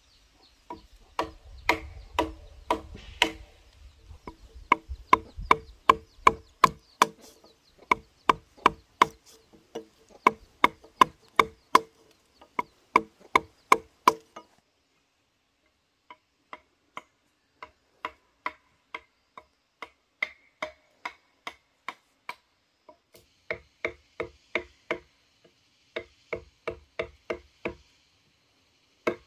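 Repeated sharp chopping strikes on bamboo, about two to three a second, each with a short hollow ringing note. There is a brief pause about halfway through, then the strikes resume in short runs.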